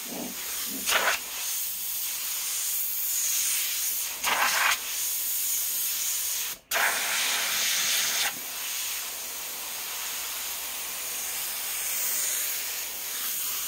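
Airbrush spraying paint: a steady hiss of compressed air that swells louder a few times and cuts out for a moment about halfway through.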